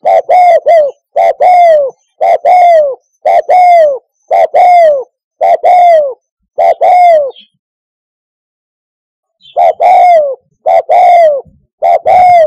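Spotted dove cooing: a loud series of falling coos about once a second, opening with a few quick short notes. The calls break off for about two seconds past the middle, then resume.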